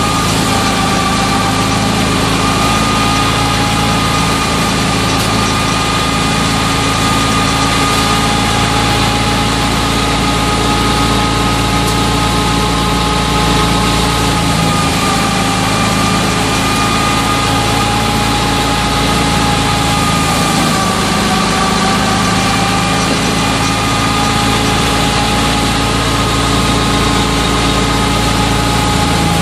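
A wheat thresher runs steadily, driven through its shaft by a FIAT 640 tractor's four-cylinder diesel engine, as a continuous loud machine hum with a whine on top. The whine sags slightly in pitch twice, around the middle and about two-thirds of the way through.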